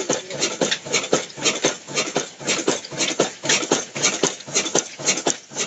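Old Ruston Hornsby stationary engine running, its mechanism giving a steady, even knocking of about five beats a second.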